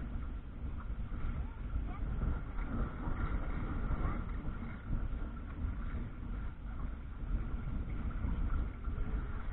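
Wind buffeting the microphone, with water washing along the hull of a sailing canoe under way.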